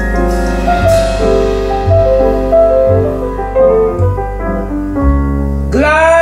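Jazz ballad: piano playing a melodic passage over low bass notes, with a woman's voice sliding up into one long held note near the end.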